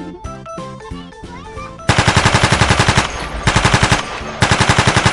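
Children's background music, then about two seconds in, three bursts of rapid machine-gun fire sound, about ten shots a second, over the music.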